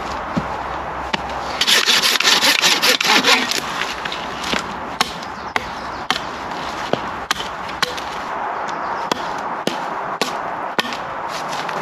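Japanese pull-saw cutting wood in quick strokes for about two seconds, then a small hatchet knocking side branches off a thin pole in sharp, separate chops.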